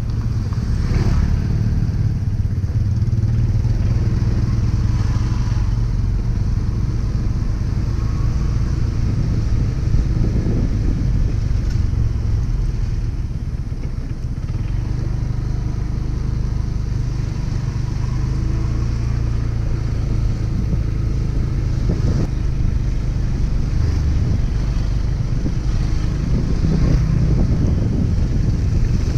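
Motorcycle engine running steadily while riding, a low drone with road rumble and some pitch changes as it speeds up and slows.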